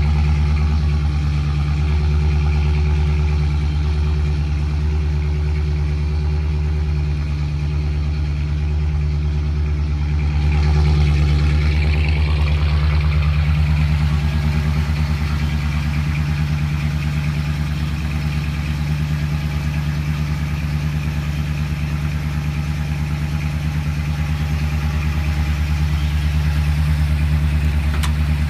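1977 Ford Explorer-trim pickup's engine idling steadily, a low even pulsing that gets a little louder for a couple of seconds about eleven seconds in.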